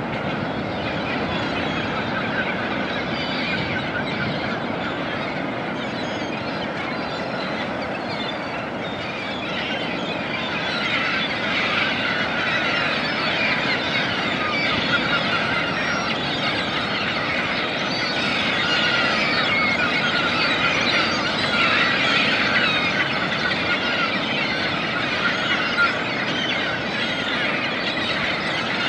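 Pacific Ocean surf washing onto a sandy beach, a steady wash of noise, with a dense chatter of many seabirds calling over it that grows busier and a little louder from about a third of the way in.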